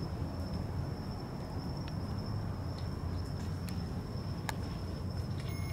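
A steady high insect trill over a low outdoor rumble, with a few faint clicks. Just before the end, a REM pod's electronic alarm starts a steady tone, its signal that something is close to the device.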